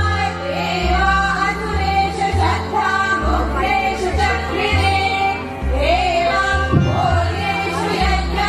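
Background music: a sung devotional-style melody over deep bass notes.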